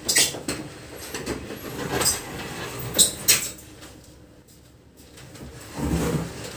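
Wooden furniture being shifted by hand: a series of sharp knocks and clacks of wood on wood, the loudest two close together about three seconds in, then a low thud as a heavy piece settles near the end.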